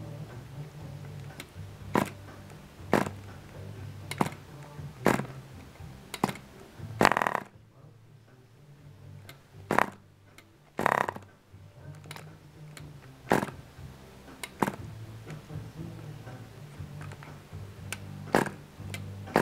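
Small Cox model glow engine on a tether car being hand-started by flicking its propeller: a sharp pop roughly once a second, with two longer sputters where it fires briefly but does not keep running.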